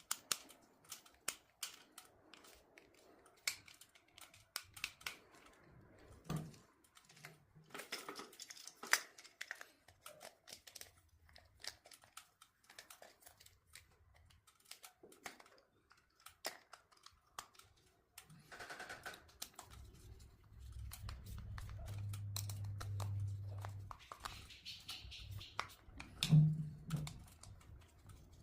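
Many small clicks, taps and crinkling handling noises, with a low hum for a few seconds about two-thirds of the way in and a louder knock near the end.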